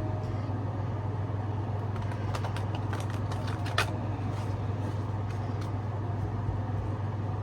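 A steady low hum with a few light clicks and taps from tarot cards being handled, the sharpest about four seconds in.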